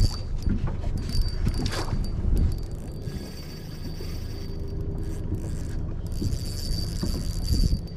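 Spinning fishing reel being wound in short spells: a mechanical whirr with a thin high whine that starts and stops. A steady low rumble runs underneath throughout.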